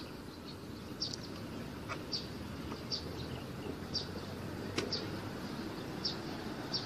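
A small bird chirping over and over, a short high note about once a second. Under it, a faint click or two from the scooter's seat backrest as it is folded down flat.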